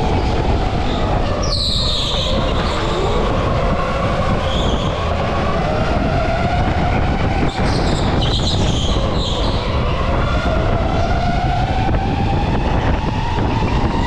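Karts racing round a track: their motors run continuously, whining up and down in pitch as they accelerate and slow, with short high tyre squeals about a second and a half in and again about two thirds of the way through.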